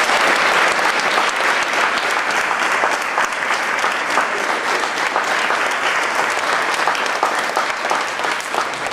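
Large audience of students applauding in a gymnasium, many hands clapping at once, thinning out near the end.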